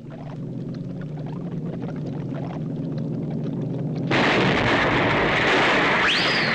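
Cartoon sound effects: a low rumble builds steadily as two chemicals are mixed, then an explosion bursts in about four seconds in and keeps going. Near the end a short whistle rises and falls.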